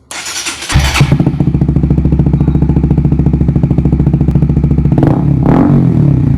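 Honda CBR150R's single-cylinder engine running through its exhaust: a short noisy burst, then a steady idle with rapid, even exhaust pulses, and a brief blip of the throttle near the end before it cuts off suddenly.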